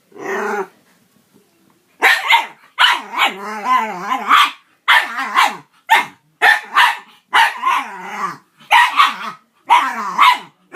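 A Jack Russell terrier making strange noises: a string of barks and growl-like calls, about eight in quick succession after a short pause, one of them drawn out for over a second.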